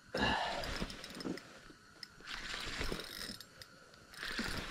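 Spinning reel clicking and whirring in three spurts of about a second each, as line is worked against a large lake trout hooked through the ice.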